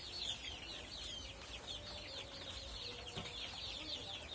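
A flock of chickens cheeping together: a dense, steady chorus of many overlapping short, high, falling peeps.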